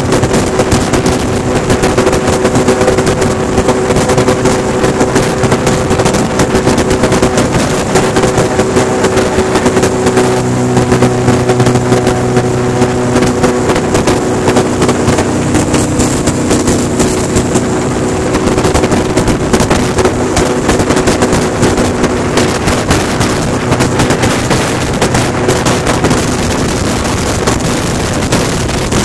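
Airboat engine and propeller running at speed, a loud steady drone; the engine note shifts about ten seconds in.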